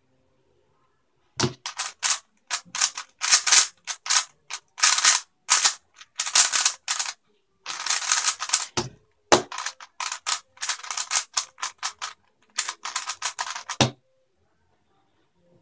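3x3 speedcube being turned very fast by hand: quick runs of clacking layer turns broken by brief pauses. A thump about a second and a half in opens the solve, and a thump near the end closes it as the cube is set down on the table.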